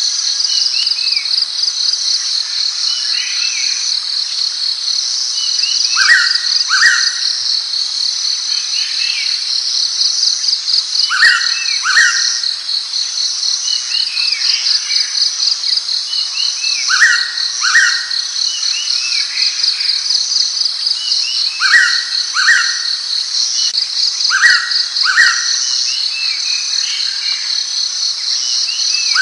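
Blue-winged pitta calling its two-note whistle, the notes under a second apart, repeated about five times at intervals of a few seconds. A steady high insect trill runs underneath.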